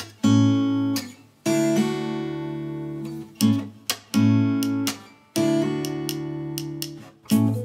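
Background music: acoustic guitar strumming chords, each left to ring out for a second or two before the next.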